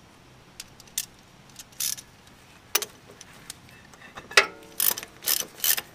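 Metal hand tools clinking and clicking as a socket and ratchet are picked up and fitted to a bolt on a rear brake caliper. Scattered single clicks at first, then a quick run of ringing metallic clinks about four seconds in.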